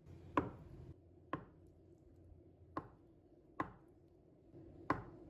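Knife cutting through firm tofu and knocking on a wooden cutting board, five single chops at uneven intervals.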